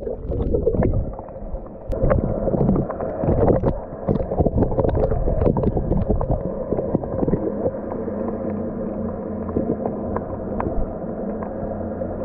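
Muffled underwater sound from a GoPro in its waterproof housing, floating among a school of baitfish: water sloshing and bubbling against the housing, with scattered small ticks. It is busy and uneven at first and settles to a steadier low rumble after about seven seconds.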